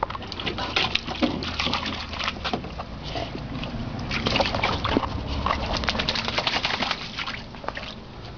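A puppy splashing and sloshing the water of a shallow plastic kiddie pool, a fast, irregular run of splashes with its head down in the water.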